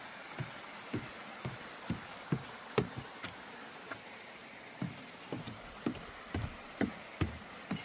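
Mountain stream running over rocks: a steady rush of water with irregular gurgling plops about twice a second.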